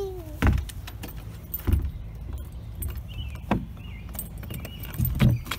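A bunch of keys jangling as a key is worked in a doorknob lock, with four dull knocks spread through.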